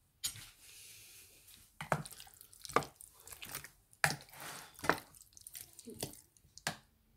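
Wet squelching and slapping of a hand turning raw chicken drumsticks in a thick yogurt-and-spice marinade in a bowl, in irregular bursts.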